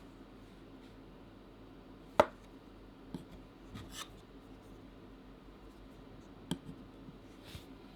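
Hands handling a vinyl Funko Pop figure on a surface: light rubs and small clicks, with a sharp tap about two seconds in and a smaller one about six and a half seconds in.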